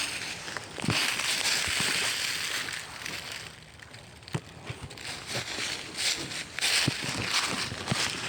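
Footsteps crunching and rustling through dry ground cover, with scattered sharp snaps and clicks; the rustling drops away for a second or two around the middle, then picks up again.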